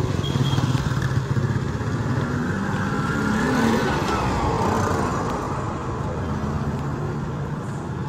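Motorcycle engine running steadily as it rides along a road, with a brief rising and falling whine in the middle.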